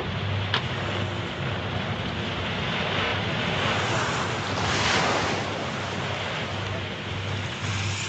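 Sea waves washing and splashing, with wind on the microphone, swelling to a louder surge about four to five seconds in. A low hum pulses on and off underneath, and there is one sharp click near the start.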